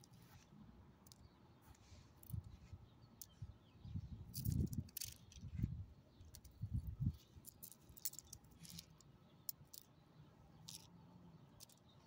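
Faint scattered clicks and light jingling from a small dog's dangling collar tags as it noses around on gravel, with a few dull low thumps about four to seven seconds in.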